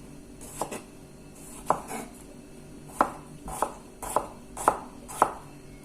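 Knife chopping radishes on a cutting board: about eight separate sharp chops, irregularly spaced and coming closer together in the second half.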